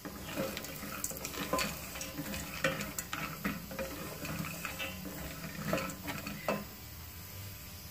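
Wooden spatula stirring mixed nuts and raisins roasting in ghee in a stainless steel pot: irregular scrapes and light rattles of nuts against the metal, over a low sizzle of the ghee.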